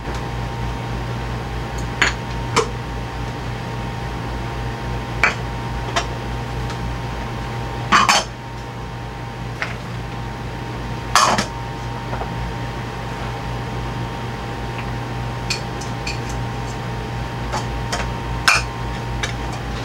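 Scattered clinks, knocks and short scrapes of small ingredient cups and a plastic mixing bowl as chopped vegetables and eggs are tipped into the bowl, over a steady low hum.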